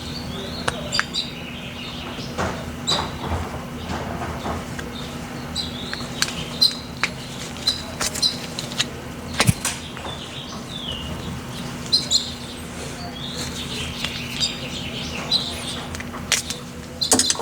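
Small sharp clicks and scrapes of a metal pick working a seal into a hydraulic cylinder gland, over a steady hum, with repeated short high chirps throughout.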